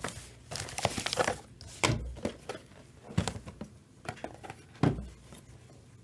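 A stack of chrome refractor baseball trading cards being flipped through by gloved hands, the cards sliding and flicking against one another in irregular clicks, with a couple of sharper snaps.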